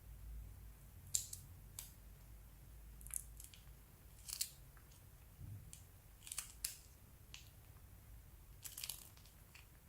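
Faint, short, sharp crackles and clicks, about a dozen at irregular intervals, from slime and plastic piping bags being handled.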